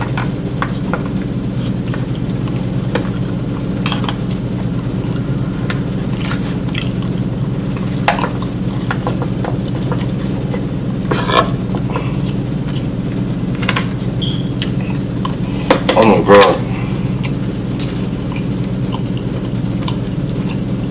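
Fork scraping and tapping in an aluminium foil pan of food, with scattered short clicks, over a steady low hum. A brief vocal sound comes about three-quarters of the way through.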